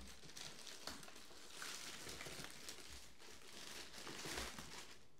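Faint crinkling and rustling of parcel packaging being opened and handled.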